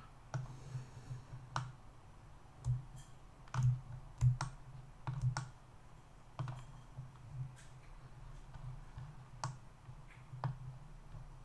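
Computer mouse and keyboard clicks while working in Blender: about a dozen short, sharp clicks at irregular intervals, from Alt-clicking edge loops and pressing Ctrl+E shortcuts.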